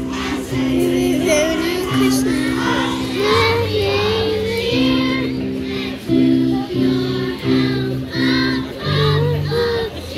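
Children's choir singing a Christmas song in unison over an accompaniment of steady held chords; the music stops just before the end.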